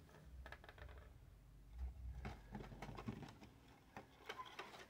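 Faint handling noises: scattered soft clicks and rustles of hands moving plastic graded-card slabs and a cardboard box.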